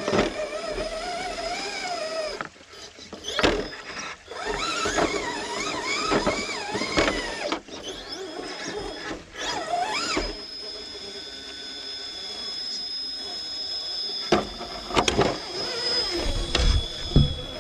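RC rock crawler's brushless motor and speed controller whining, the pitch rising and falling with the throttle as it climbs, with sharp knocks of tyres and chassis on rock. From about ten seconds in a steady high whine holds for several seconds.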